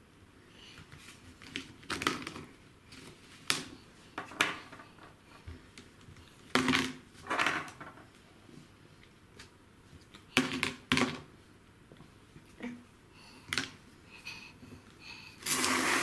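Whole walnuts in their shells knocking and rolling on a hard countertop: a series of separate clacks and short clatters, a few seconds apart, with a longer scraping clatter near the end.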